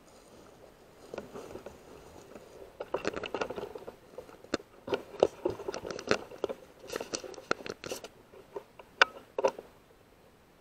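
Irregular rustling, scraping and knocking as the rifle is carried and handled through undergrowth, picked up close by the scope-mounted camera's microphone. A sharp knock about nine seconds in is the loudest.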